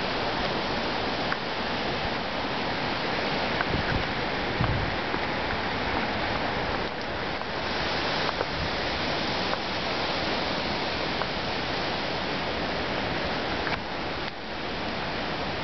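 Hurricane winds rushing through trees and shrubs in a steady, dense noise, with an occasional low thump of a gust buffeting the microphone.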